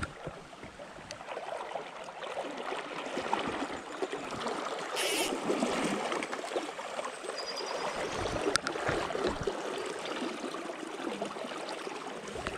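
River water rushing steadily past, the flow of a trout river running high. A short hiss comes about five seconds in, and a single click a little after eight seconds.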